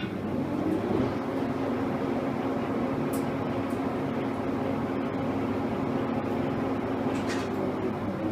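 Poreba MD 63 lathe switched on with a click, its drive spinning up over about the first second and then running at a steady hum.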